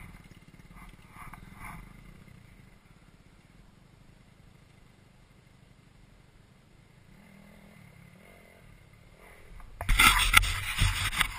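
Faint off-road motorcycle engines, low and distant, with a faint rise and fall in pitch about seven to nine seconds in. About ten seconds in, a loud, rough rushing noise sets in.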